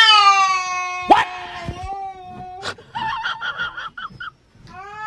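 A cat yowling: a long drawn-out cry that starts high, falls and then holds steady for over two seconds, with a second long cry beginning near the end.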